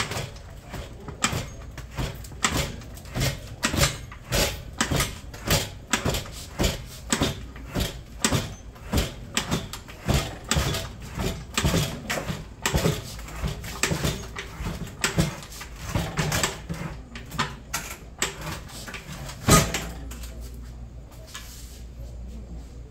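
A stainless-steel double-boiler extractor is rocked side to side to work it free, its metal body knocking and clanking against the machine pressed up beside it and against its base. The knocks come in a fairly even rhythm of about two a second, then one louder bang near the end, after which the knocking stops and only a low hum remains.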